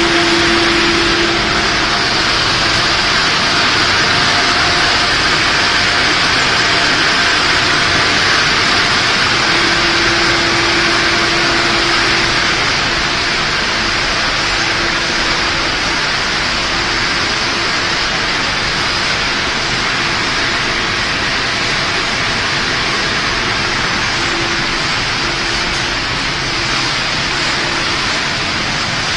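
Puffed-snack production line machinery running in a factory: a steady, loud whirring hiss from the extruder, oven and conveyors, with a faint hum that comes and goes.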